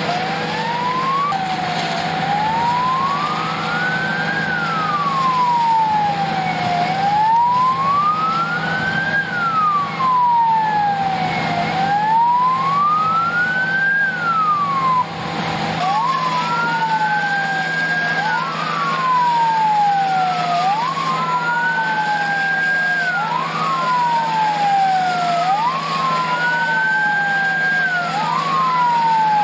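Fire truck sirens wailing, each a slow rise and fall lasting about five seconds. About halfway through, a second siren joins, out of step with the first, so the wails overlap. A steady low engine hum runs underneath.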